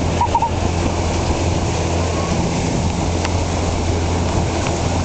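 Pontoon boat under way, its outboard motor giving a steady low hum beneath water rushing past and wind buffeting the microphone.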